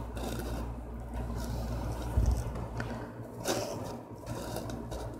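Hands rustling and smoothing a cotton T-shirt, the fabric brushing and scraping in short spells, strongest about three and a half seconds in. A dull low thump about two seconds in, over a steady low hum.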